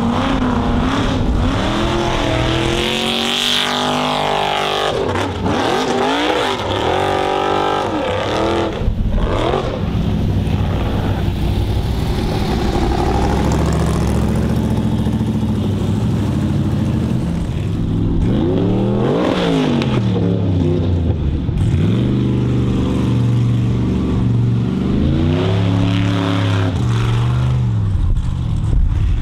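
Formula offroad racing buggy engines revving hard on a steep gravel hillclimb, the pitch sweeping up and down again and again as the throttle is worked.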